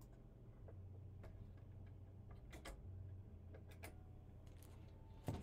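Near silence: a steady low hum with several faint, irregularly spaced clicks.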